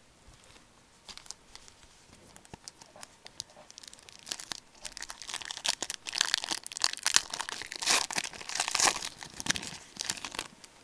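Trading card pack wrapper being torn open and crinkled by hand: a few faint crinkles at first, then dense crinkling from about four seconds in that stops just before the end.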